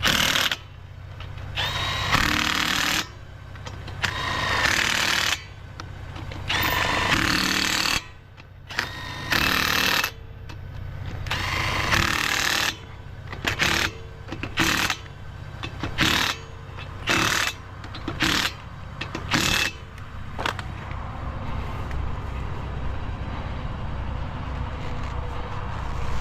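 Impact wrench on the wheel's lug nuts, running in repeated bursts: several longer runs of a second or more, then a string of short bursts about a second apart, typical of nuts being run down and then hammered tight. The bursts stop about 20 seconds in, leaving a steady low rumble.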